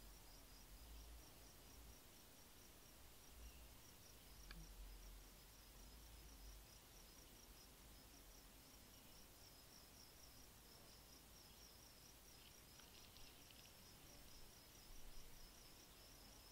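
Faint, high-pitched insect chirping, a fast, even pulse that keeps going with only short breaks, over a low background rumble.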